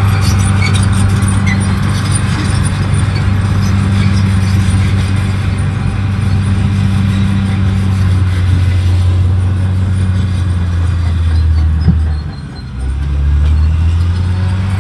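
Caterpillar D6R XL bulldozer's diesel engine running steadily under load. About eleven seconds in its note sinks, there is a short click and a brief drop in level, then the engine note climbs back up.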